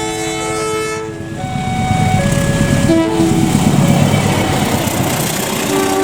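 Basuri telolet melody horn on a Scania K410 tri-axle bus playing a tune in held notes that step from pitch to pitch. In the middle the horn thins to a few short notes under a swell of low engine and road rumble, and a new chord starts near the end.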